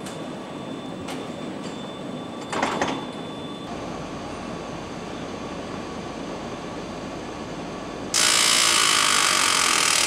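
Car assembly-line machinery running steadily, with a short clatter about two and a half seconds in and a loud hiss lasting about two seconds near the end.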